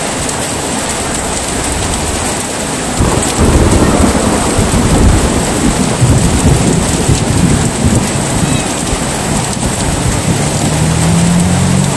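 Heavy rain falling steadily, with a long rolling rumble of thunder that swells in about three seconds in and rumbles on. A low steady drone comes in near the end.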